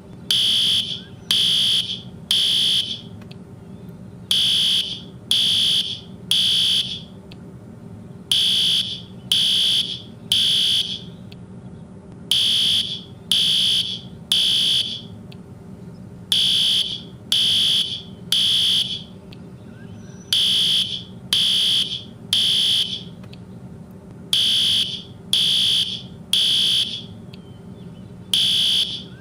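Fire alarm sounding in the standard three-beep evacuation pattern: three high-pitched beeps, a pause, then three more, repeating about every four seconds.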